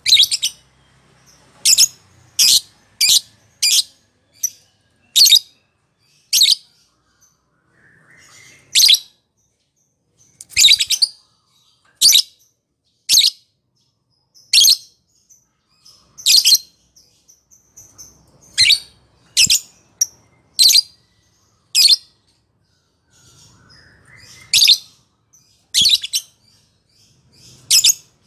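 Lovebird giving short, sharp, high-pitched calls one after another, roughly one a second with some coming in quick pairs.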